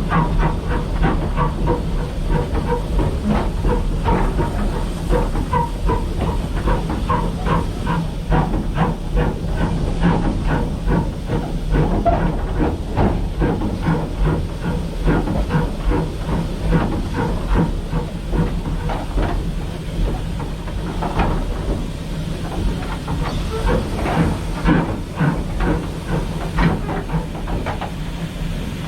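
Steam locomotive running, with a steady hiss of steam and a dense clatter of irregular knocks over a steady low drone.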